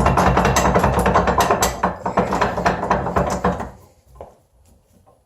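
A power tool's motor running hard with rapid, irregular clicking, cutting off suddenly a little over halfway through.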